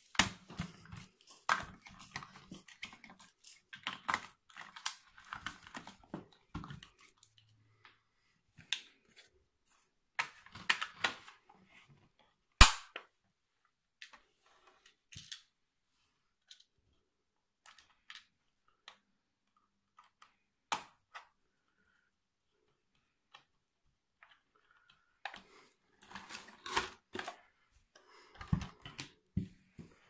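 Plastic clicks, snaps and knocks from handling the hard plastic chassis and parts of a toy RC buggy, in clusters, with one sharp snap near the middle and a sparser stretch after it.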